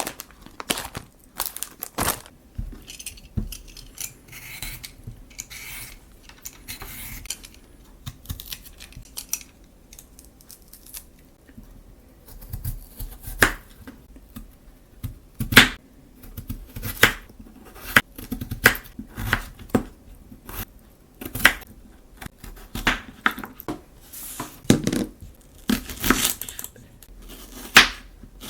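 Food-preparation handling sounds: crinkling and tearing of packaging in the first third, then a run of sharp knocks and clicks, about one a second, as utensils and cookware are handled.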